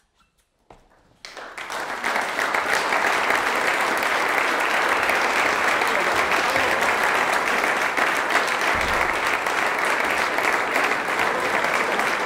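Near silence, then audience applause that starts about a second in and quickly builds to steady, dense clapping.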